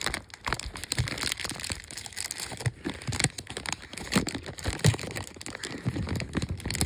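Irregular crinkling and rustling with scattered light clicks and knocks: a baseball card being worked back into a plastic holder, with handling noise from the camera up close.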